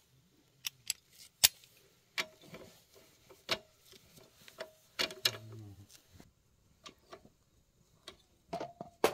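Socket wrench and extension bar clicking and clinking against a bolt on a walking tractor, in scattered, uneven metal ticks, with a louder clatter near the end.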